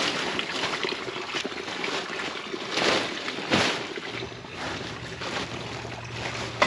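Water running out of a pump's open drain-plug hole in a steady rushing trickle as it is drained for winter, with two brief louder swishes about three seconds in.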